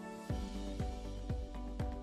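Background music: a held synth chord, joined about a third of a second in by a deep drum beat about twice a second.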